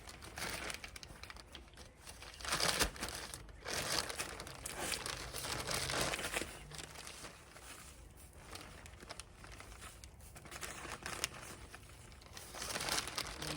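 Plastic bag of cow manure being handled and emptied: bursts of plastic rustling, the strongest a few seconds in and again near the end.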